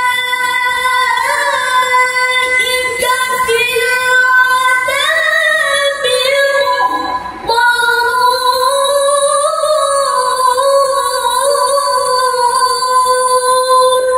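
A male qari chanting Quran recitation (tilawah, mujawwad style) through a microphone, holding long, high notes with melismatic ornaments. There is a short pause for breath about halfway through.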